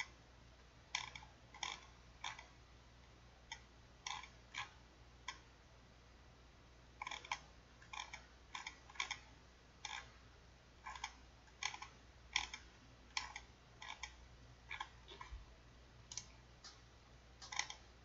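Sharp clicks at a computer's mouse and keyboard, irregular and sparse, coming singly or in small clusters with short pauses between.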